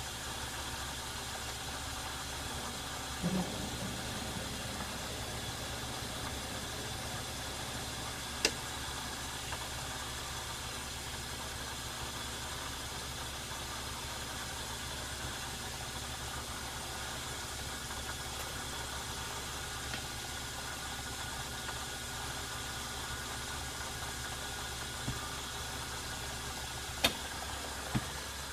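Metal lathe running steadily under power, taking a spring pass while single-point cutting a thread; a steady motor and gear hum with a few sharp clicks, the loudest near the end, where the lathe stops.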